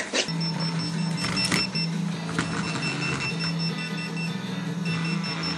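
Mobile phone vibrating on a wooden floor: a steady low buzz that breaks off briefly a few times, with faint high beeps from its ringtone and a few light knocks.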